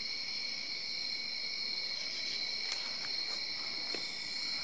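A steady chorus of crickets, a continuous high trill held at a few fixed pitches, with a few faint ticks about three seconds in.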